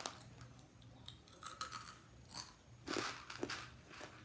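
Crunchy food being bitten and chewed close to the microphone for ASMR: several separate crunches.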